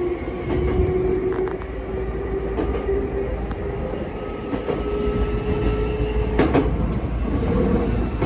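Hankyu resistor-control (抵抗制御) electric train under way: its traction motors whine with a slowly rising pitch as it gathers speed, over wheel and rail rumble with clickety-clack from the joints. The whine stops about six seconds in, with a sharp clank around then.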